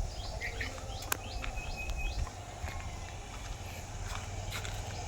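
Birds chirping, a quick series of short rising chirps in the first two seconds, over a steady low rumble, with a single sharp click about a second in.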